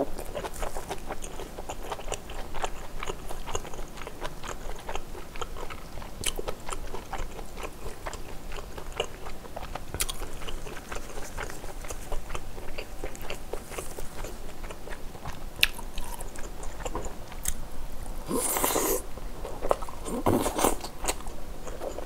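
Close-miked chewing of braised kimchi stew with pork and rice: continuous wet mouth clicks and soft crunches of the kimchi. Two louder bursts of mouth noise come near the end.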